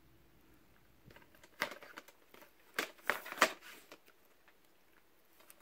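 Plastic DVD cases clicking and scraping against each other as one is slid back into a packed rack and another is pulled out, a handful of light clacks between about one and four seconds in.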